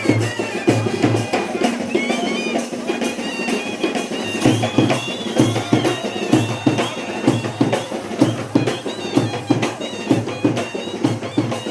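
Badaga dance music: a steady drum beat with a high, wavering melody over it.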